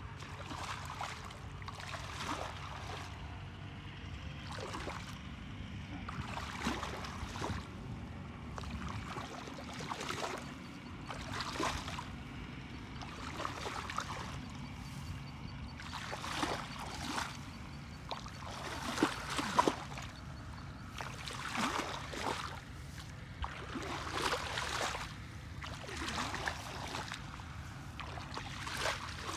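Shallow muddy water sloshing and splashing as bare feet and hands wade and stir through it, in a series of uneven splashes every second or two, a few louder ones partway through.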